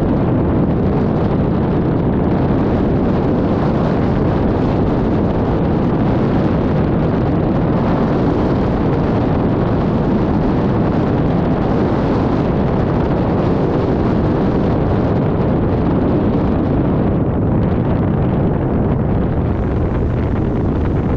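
Steady, loud wind rush buffeting the microphone, with no distinct engine tone.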